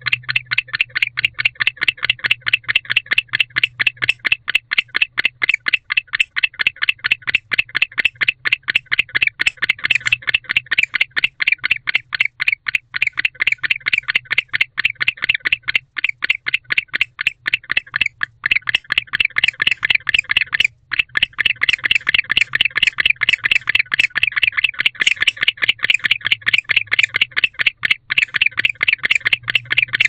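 Male barn owl giving a long run of rapid chirps, about six a second and unbroken except for a brief pause about two-thirds of the way through, over a steady low electrical hum.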